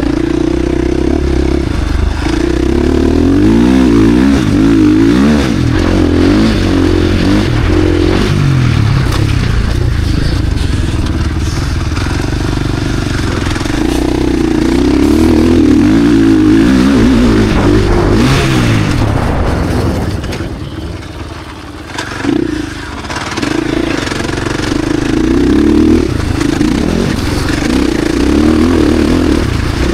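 KTM SX-F Factory Edition four-stroke single-cylinder motocross engine being ridden hard, its pitch repeatedly climbing and dropping as the throttle is opened and shut. Near the middle it backs off to a lower, quieter note for a couple of seconds with a quick blip, then pulls hard again.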